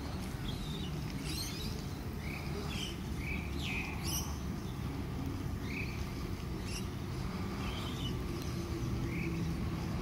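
Birds chirping at scattered intervals over a low steady rumble that grows slightly toward the end as a Sydney Trains Waratah electric train approaches the platform.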